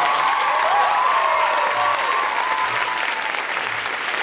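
Theatre audience applauding, with high held cheers over the clapping for the first three seconds that then die away, at the end of a musical number.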